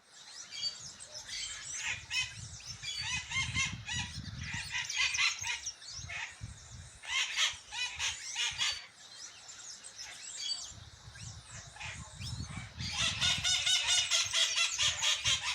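A chorus of birds calling and chirping over one another, with overlapping trills and chatter that grow dense and continuous near the end. Two brief low rumbles sit beneath the calls.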